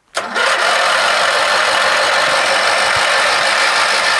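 Briggs & Stratton 19.5 hp opposed-twin lawn tractor engine being cranked on its electric starter, a loud steady sound that starts abruptly, the engine failing to keep running. The owner suspects bad gas with water in the tank after a winter's storage.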